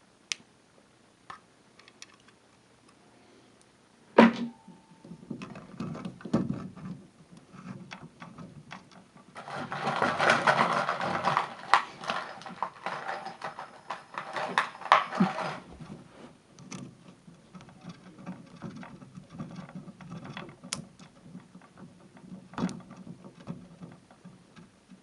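Hand-work handling noise in a small room: scattered clicks, a sharp knock about four seconds in, and a dense run of rattling and clicking from about nine to fifteen seconds.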